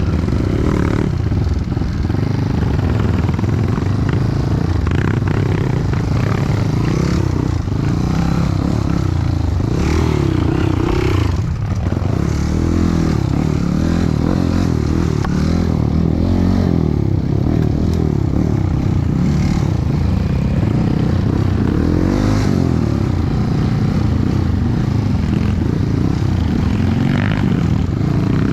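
Dirt bike engine running under load, its revs rising and falling throughout, with occasional clattering and scraping.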